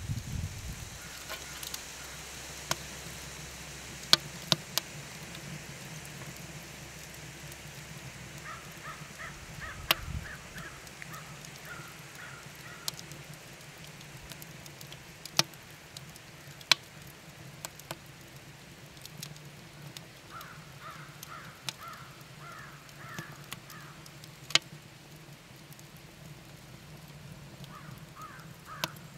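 Wood fire crackling in a cast aluminum chiminea, with sharp pops scattered through. A bird calls in three short runs of repeated calls in the background: about a third of the way in, past the two-thirds mark, and again at the end.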